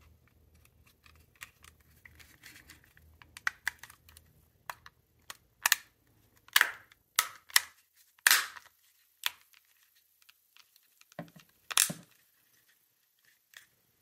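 Plastic casing of a Logitech Harmony Smart Control remote being pressed back together by hand: an irregular run of clicks, snaps and knocks, busiest about halfway through, with one last loud snap near the end.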